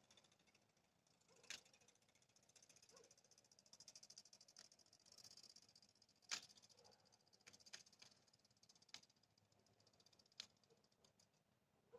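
Near silence: faint, high-pitched, rapidly pulsing insect chirring from the grass, swelling and fading, with a few soft clicks, the sharpest about six seconds in.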